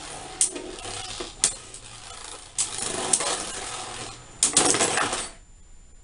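Two Beyblade Burst spinning tops whirring and scraping across a plastic stadium floor, with sharp clacks as they hit each other. About four and a half seconds in comes a quick run of hard clashes as one top bursts apart, and the sound cuts off suddenly.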